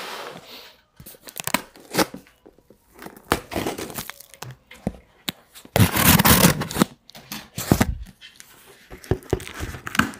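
Cardboard shipping box being handled and torn open: scattered knocks, scrapes and rustles, with a loud stretch of tearing about six seconds in.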